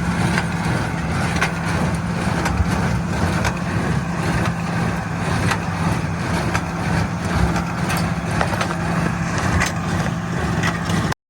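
Tractor engine running steadily while pulling a hay baler through a windrow, a constant drone with scattered knocks and rattles. The sound cuts off suddenly near the end.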